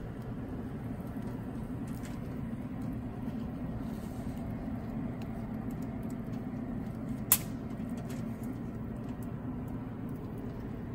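Steady low rumble of shop background noise, with one sharp metal click about seven seconds in as wiring pliers handle the fried pepperoni slices on the foil.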